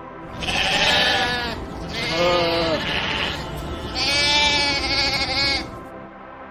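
Sheep bleating three times, each wavering call lasting a second or more.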